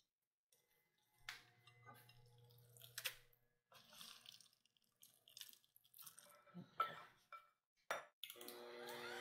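Silicone spatula scraping and tapping against a glass bowl as cooked rice drops into a bowl of wet batter: soft scattered taps and wet plops. Near the end a hand mixer switches on and runs steadily.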